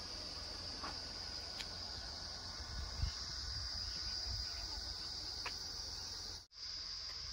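Steady high-pitched drone of insects, cutting out for an instant about six and a half seconds in.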